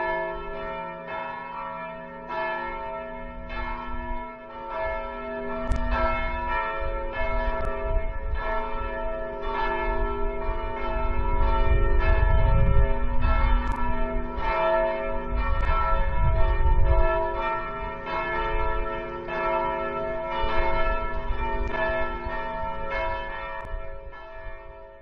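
Several church bells ringing together in a continuous peal of overlapping strokes that fades out near the end.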